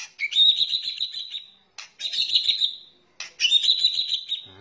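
White-rumped shama (murai batu) giving its harsh crackling "kretekan" call: three rasping bursts of about a second each, one after another with short gaps.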